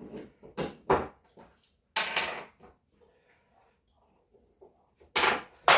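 Loose bolts and metal suspension hardware being handled and set down, clinking and clattering. There are a few sharp clicks early, a brief rattle about two seconds in, a pause, then a louder clatter near the end.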